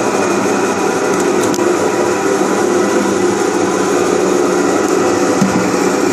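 Screw-type cone log splitter running steadily, its threaded cone spinning with no log on it, a constant motor hum and whine.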